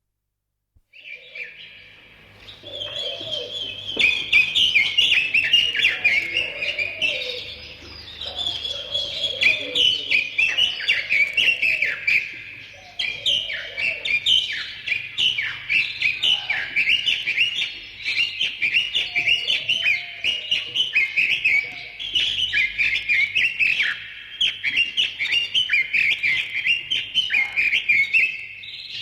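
Many birds chirping and singing at once: a dense, continuous chorus of high, quick chirps that begins about a second in. In the first half, lower, rounder calls from another bird come in now and then beneath it.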